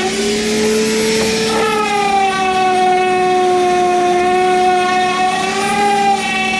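Electric power sander running with a steady whine and sanding hiss. The pitch rises a little in the first couple of seconds, then drops back and holds, with a lower steady hum beneath it.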